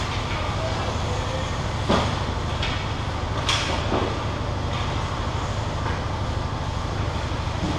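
Ice hockey play on a rink: a steady low rumble with a handful of sharp clacks and scrapes of sticks, puck and skates on the ice, the loudest about two seconds in.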